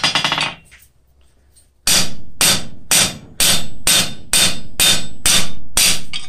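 Hand hammer striking steel rivets on a steel cross blank on an anvil, setting them flush cold. One blow, a pause of about a second, then a steady run of about ten blows at two a second, each ringing briefly.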